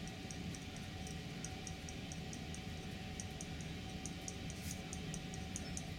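Faint, quick high-pitched ticking, about three to four ticks a second and unevenly spaced, over a steady low hum.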